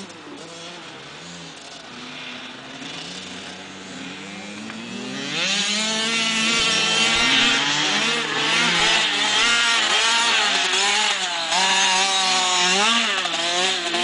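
Youth motocross bike's engine, faint and distant at first, growing much louder about five seconds in as the bike comes close, its pitch rising and falling again and again as it revs up and down.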